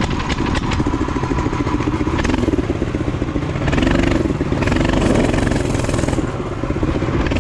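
Mini bike's small engine running under way, its pitch rising and falling with the throttle around the middle.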